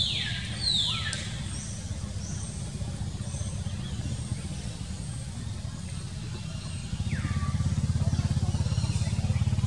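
A motor vehicle's engine running steadily as a low hum, growing louder about seven seconds in. Over it, a few short high calls fall in pitch, two near the start and one about seven seconds in.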